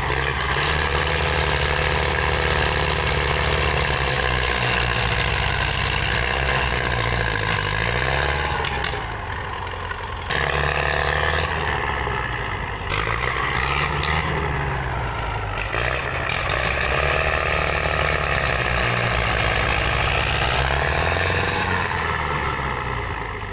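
Diesel engines of two Belarus tractors in tandem working under heavy load, engine speed sagging and picking up again several times as they strain against a badly stuck, fully loaded sugarcane trolley.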